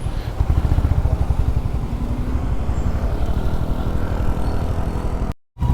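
Honda CB350RS single-cylinder engine running at low riding speed, a fast, even thudding from the motorcycle being ridden. The sound cuts out for a split second near the end.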